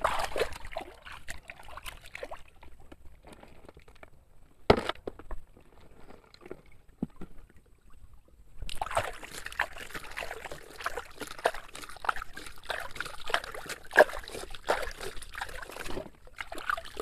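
Water sloshing and splashing as a toy sand dump truck is rinsed clean by hand. There is a sharp knock about five seconds in, and steady splashing with small clicks from about nine seconds in until near the end.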